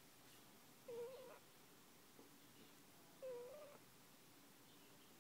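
One-month-old puppy snoring in its sleep: two short, high-pitched squeaky snores about two and a half seconds apart, one on each breath.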